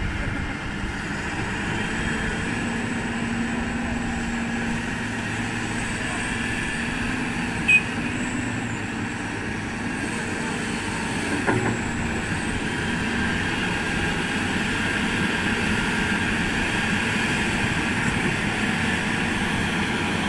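Heavy excavator diesel engines running steadily, with a short sharp sound about eight seconds in and a knock about eleven and a half seconds in.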